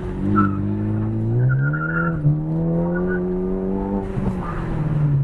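Ford Focus ST's turbocharged EcoBoost four-cylinder pulling under load. Its pitch rises about a second and a half in, climbs slowly, then drops as the throttle eases near the end.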